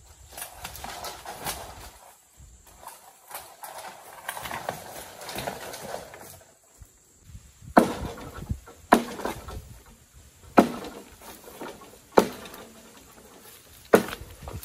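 Rustling and scraping, then a series of five sharp knocks about a second and a half apart.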